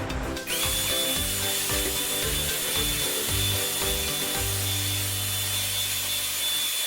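Deerma DX810 corded stick vacuum cleaner switching on about half a second in and running steadily with a thin high whine while vacuuming carpet.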